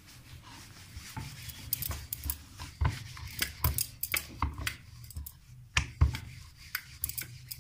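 Wooden rolling pin rolling paratha dough on a round wooden board, with irregular wood-on-wood clacks and knocks, two or three a second, starting about a second in.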